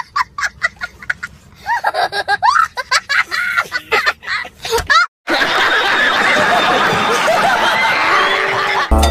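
A small child laughing hard in quick, high bursts. A little past halfway it cuts to a crowd of people laughing together.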